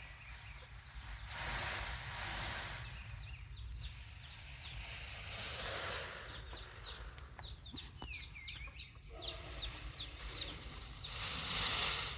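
Chickens: a flock with young chicks, the chicks peeping with many short, high, sliding calls from about three seconds in. Between the calls there are a few swells of hiss-like noise.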